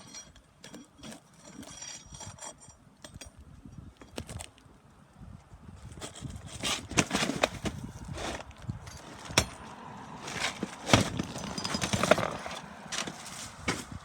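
A pry tool scraping and knocking under stuck asphalt shingles as they are worked loose, with irregular clicks and scrapes. It grows louder and busier about halfway through as the shingle, held fast by its adhesive, tears away.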